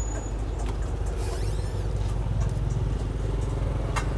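An engine running steadily with a low hum, with a sharp click near the end.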